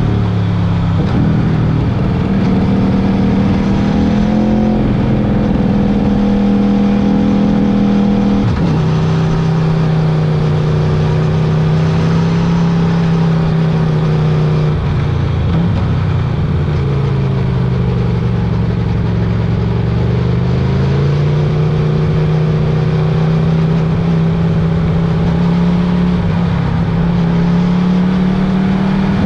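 Motorcycle engine running under way, with a steady rush of wind and road noise. Its pitch drops suddenly about a third of the way in, sags lower past the middle, then climbs back.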